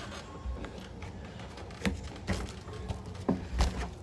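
Scattered knocks and thumps of a person crawling through a plastic playground play structure, with hands, knees and body bumping the plastic panels and padded floor. Several sharp knocks come in the second half, and the loudest thump is near the end.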